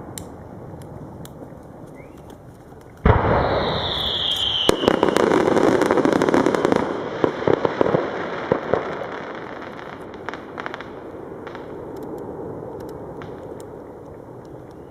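An aerial fireworks shell goes off with a sudden loud bang about three seconds in. A short falling whistle follows, then several seconds of dense crackling, which dies away into a rumbling echo.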